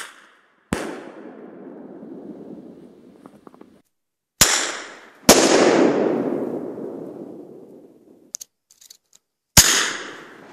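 TruFlare bear bangers fired from a pen launcher: each time a sharp crack of the launcher is followed less than a second later by the louder blast of the banger exploding, dying away over two to three seconds. This happens twice, and a third launch crack comes near the end, with its blast just at the close.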